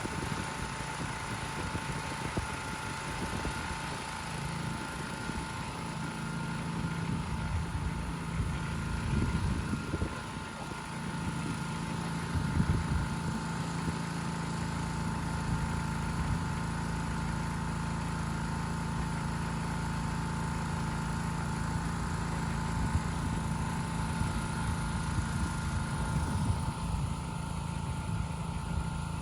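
Concrete mixer running steadily with a constant motor hum, with a few louder knocks and scrapes about a third of the way in.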